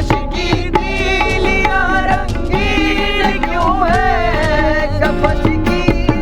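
Background music: a wavering melodic line over regular percussion.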